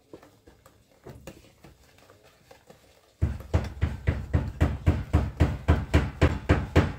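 A utensil beating egg, sugar and oil batter in a bowl: a fast, even run of knocks against the bowl, about five a second, starting about three seconds in, after a few faint clicks.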